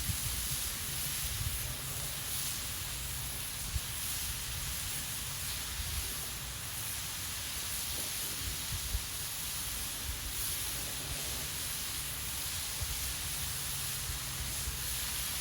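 Steady hiss of ground-beef patties sizzling on a charcoal grill, with a low rumble underneath.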